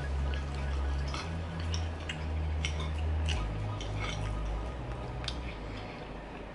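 A fork clicking and scraping against a plate while someone eats, in scattered light clinks, over a low rumble that shifts in pitch.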